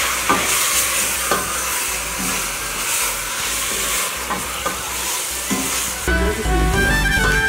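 Rabbit meat and onions sizzling in oil in a stainless steel pot as they are stirred with a wooden spoon, with a few knocks of the spoon against the pot. Background music comes in about six seconds in.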